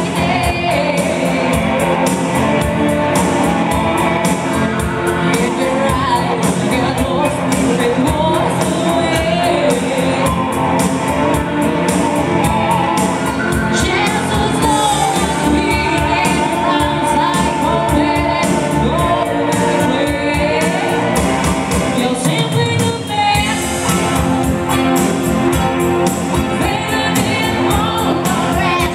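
Live pop dance music: a woman singing into a microphone over guitar and a steady beat. The bass briefly drops out about 23 seconds in, then the full band comes back.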